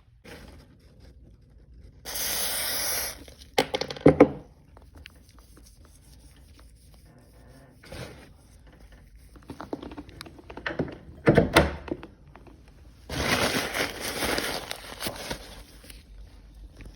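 An aerosol can of WD-40 spray gel lubricant hissing for about a second onto a door-hinge pin, then sharp knocks and clicks of the metal pin and hinge being handled. Near the end comes a longer, rougher hiss of about two seconds.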